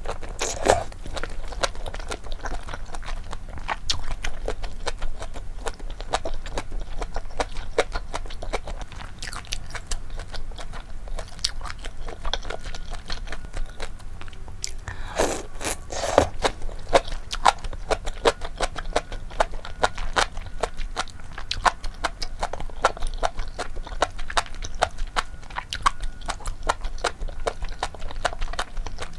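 Close-miked eating sounds of malatang with chewy flat sweet-potato-starch noodles: biting and chewing, a dense run of small clicks, with a louder burst about halfway through.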